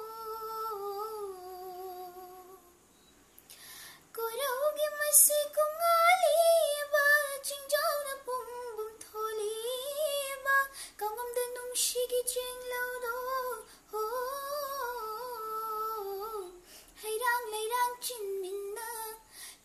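A girl's voice singing a Manipuri song unaccompanied, in long held and gently bending melodic lines. There is a brief pause for breath about three seconds in.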